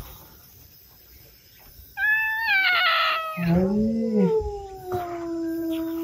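A domestic cat's drawn-out warning yowl, starting about two seconds in, sliding down in pitch and settling into a long, low, steady growling cry. It is the sound of a standoff with another cat.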